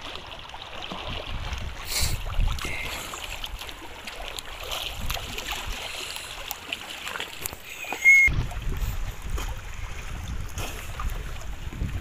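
Seawater sloshing and splashing, with wind rumbling on the microphone. There is a sharp knock about eight seconds in, after which the wind rumble grows stronger.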